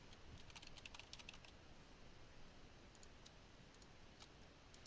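Faint computer keyboard typing: a quick run of keystrokes in the first second and a half, then a few scattered clicks.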